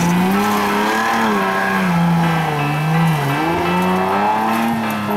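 Off-road race 4x4's engine revving under load in deep mud, its pitch rising and falling in swells about a second apart as the driver works the throttle.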